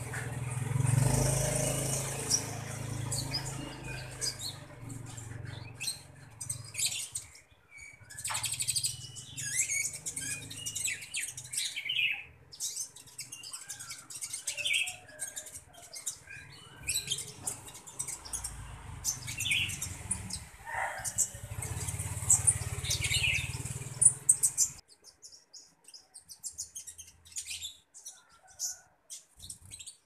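Caged konin ijoan, a small songbird, calling in many short, high chirps and twitters. A low steady hum runs underneath and stops near the end, leaving scattered chirps.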